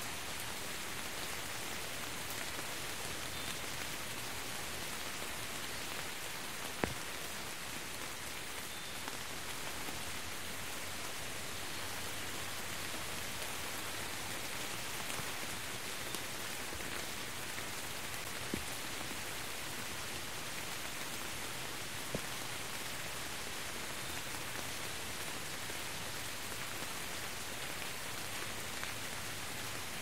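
Steady rain falling on wet ground, an even hiss with a few sharper single drop impacts standing out, the clearest about seven seconds in.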